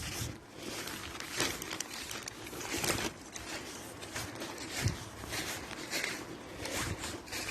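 Slow footsteps crunching and rustling on a rough path, with clothing and phone handling rustle; irregular steps about a second or so apart.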